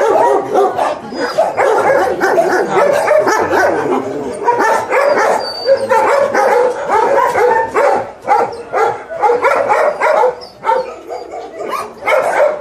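Many kennelled dogs barking and yelping at once: a dense, overlapping chorus of barks with no break.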